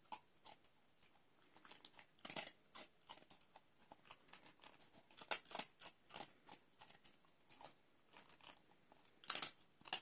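Jack Russell terrier chewing dry kibble: faint, irregular crunches and clicks, coming in clusters.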